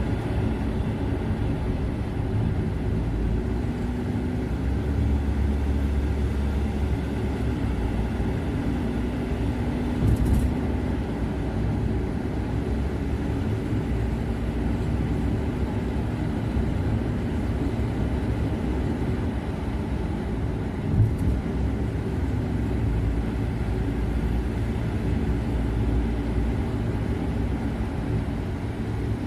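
A car driving at steady speed, its engine and tyre noise forming a continuous low rumble, with a short knock about 10 seconds in and again about 21 seconds in.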